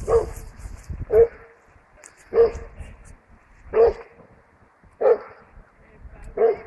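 A dog barking six times, single barks spaced evenly about a second and a quarter apart.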